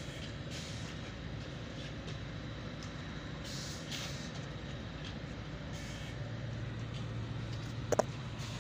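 A steady low mechanical hum and rumble, like a machine or engine running, with a few brief hisses and one short sharp click near the end.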